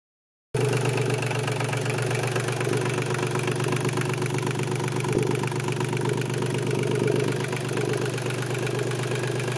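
A yacht's inboard marine diesel engine, a green-painted Volvo Penta, idling steadily, heard up close through the open engine compartment.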